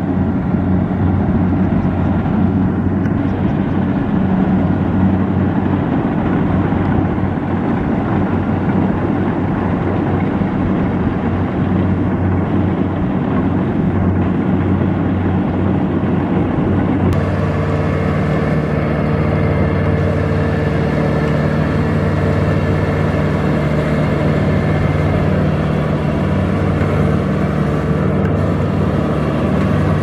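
Kubota DC-70 rice combine harvester running steadily as it cuts rice, its diesel engine holding a constant note under load. About halfway through, the engine note changes abruptly to a different steady pitch.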